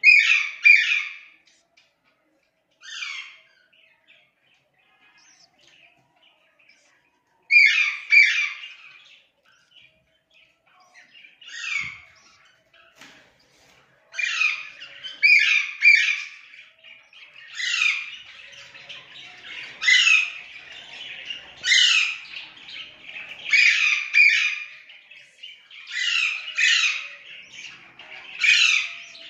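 Budgerigars calling: short, rough calls, often two or three in quick succession, repeating every second or two. There are quiet gaps of several seconds early on. From about halfway, a softer steady chatter runs underneath the calls.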